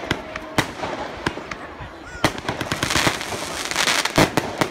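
Fireworks going off: scattered sharp bangs at first, then from about halfway a rapid run of bangs and crackling, with the loudest bang near the end.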